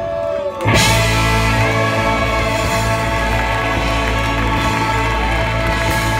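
Live rock band with a horn section playing loudly. After a short dip, about three-quarters of a second in, the full band comes in and holds a big sustained chord.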